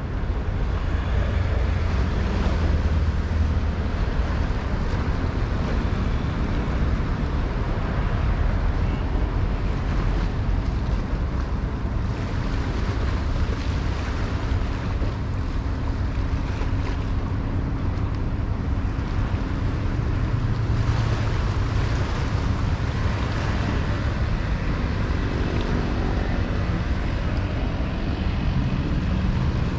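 Steady wind buffeting the microphone over a low rumble, with a faint low hum coming in near the end.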